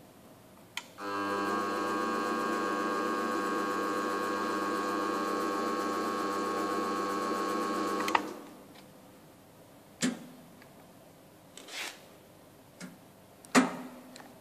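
A 5-ton welding positioner's electric drive running with a steady hum for about seven seconds, starting about a second in just after a click and stopping abruptly. Afterwards come several separate sharp clicks and knocks, the loudest near the end.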